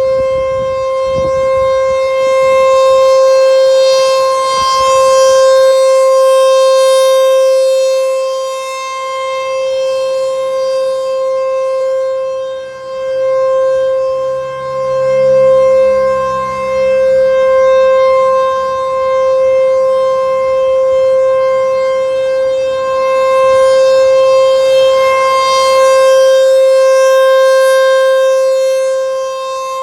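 ASC T-128 rotating electronic outdoor warning siren sounding a loud, steady-pitched alert tone during a siren test. Its loudness swells and fades every several seconds as the rotating horn sweeps past.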